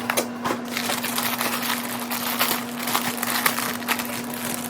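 Plastic bag and tissue paper being handled and unwrapped, with irregular crinkling and rustling throughout.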